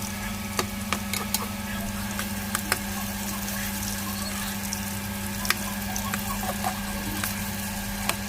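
Chicken meatballs and mushrooms deep-frying in hot oil: a steady sizzle with frequent sharp pops. A low steady hum runs underneath.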